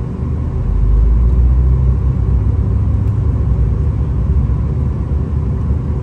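V/Line VLocity diesel railcar running along the line, heard from inside the carriage as a steady low rumble of engine and wheels on track. The rumble swells about a second in.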